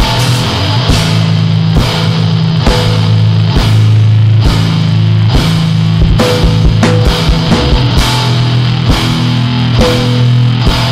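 Two-piece powerviolence band recording: a heavily distorted low riff held on long notes, with drum kit hits and cymbal crashes.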